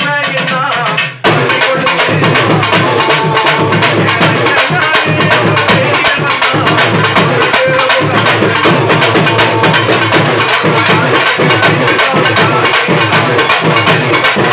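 An urumi melam drum ensemble, a Tamil folk troupe of urumi hourglass drums and other drums, starts a fast, dense drumming rhythm about a second in. A voice singing is heard just before the drums come in.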